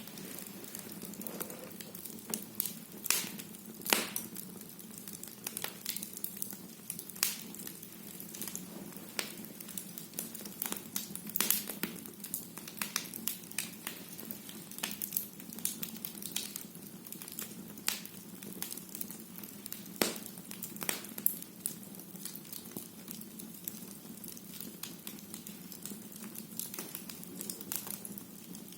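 Burning firewood in a fireplace crackling and popping: irregular sharp snaps over a steady soft hiss of the flames.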